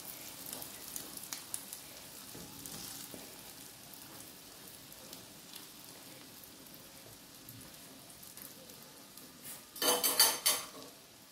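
Omelette frying in desi ghee on a flat iron tawa: a faint, steady sizzle with fine crackles that slowly grows fainter. A brief louder noise near the end.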